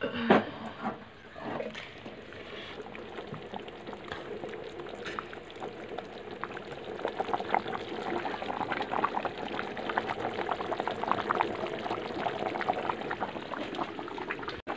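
A pot knocks down onto the stove, then thick fish curry simmers in an aluminium pot, bubbling and popping. The bubbling grows louder about halfway through as the curry comes to a full simmer.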